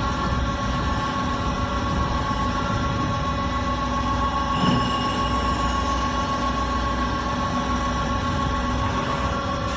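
CNC metal spinning lathe running, a steady machine hum of several held tones over a rumble, with one brief louder swell about halfway through.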